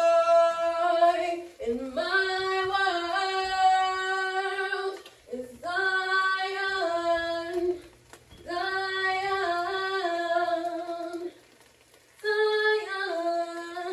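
A woman singing alone without accompaniment, in long held notes that she scoops up into at the start of each phrase, with short pauses between phrases.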